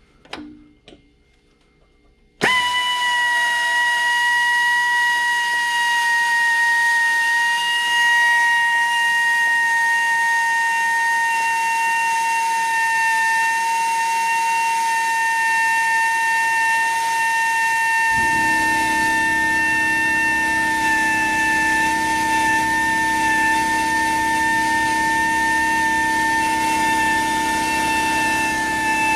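Power drill turning a Rescue Bit against a broken-off cobalt drill bit stuck in a bolt: a steady high whine that starts suddenly about two seconds in and sinks slightly in pitch. About two-thirds of the way through, a lower, rougher sound joins it as the bit works the metal.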